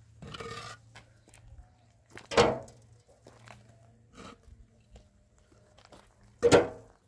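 Hollow concrete blocks loaded into a steel wheelbarrow: a scrape of block on block near the start, then two loud clunks with a brief metallic ring about four seconds apart, with lighter knocks between them.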